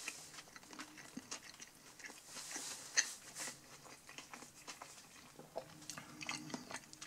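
A person chewing a mouthful of chili cheeseburger: faint chewing with scattered small clicks, and one sharper click about three seconds in.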